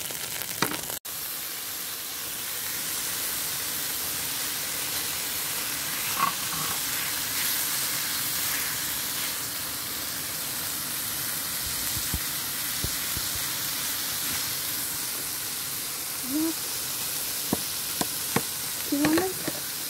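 Butter sizzling in a hot pan: a steady frying hiss, with a few short pitched sounds near the end.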